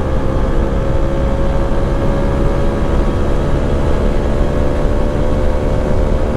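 TVS Apache motorcycle engine held at high revs at speed, its note steady and creeping slightly higher, with heavy wind rumble on the rider's microphone.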